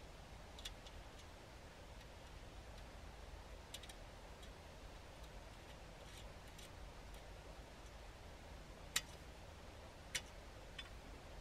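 Faint, sparse clicks and small knocks of hardware being handled as ball mounts are fitted onto a grid mounting plate, the loudest click about nine seconds in and another about a second later.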